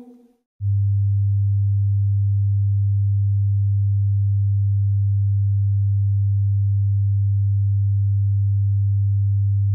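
A steady, pure low tone, a constant hum with no change in pitch or level, cutting in sharply about half a second in, just after the last sung note fades.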